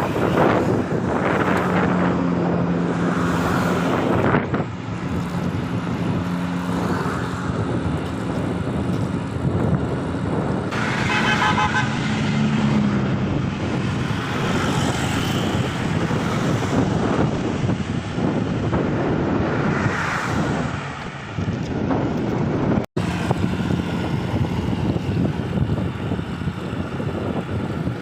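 Strong wind buffeting the microphone on a moving bicycle, with motor vehicles passing on the road and a vehicle horn tooting briefly about eleven seconds in.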